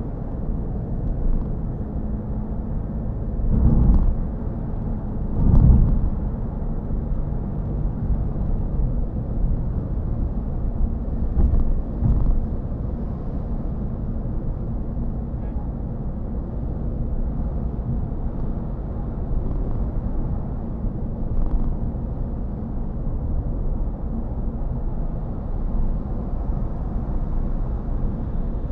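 Cabin noise of a Toyota Yaris GR Sport cruising at a steady 50 mph on a dual carriageway: a constant low road and tyre rumble with a faint drone. Two brief louder swells come about four and six seconds in, and a smaller one near twelve seconds.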